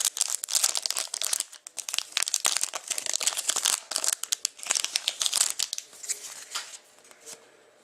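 Foil wrapper of a trading card pack crinkling and tearing as it is opened. Dense rustling that thins out about six seconds in.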